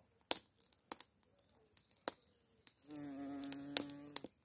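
Bumblebee buzzing at a yellow daylily: a steady, even-pitched buzz starts about three seconds in and lasts about a second and a half. Scattered sharp clicks come before it.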